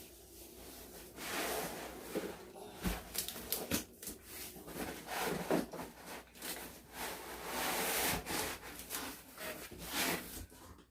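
Cardboard box and styrofoam packing scraping and rubbing as a boxed TV is worked out of its carton, irregular rustling with a couple of dull knocks about three and four seconds in.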